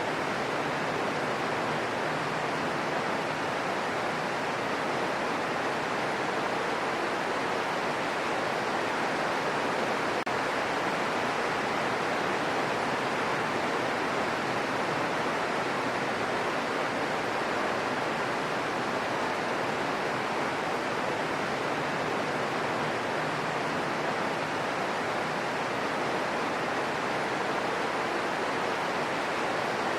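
Steady rain falling, an even hiss with no separate drops or changes.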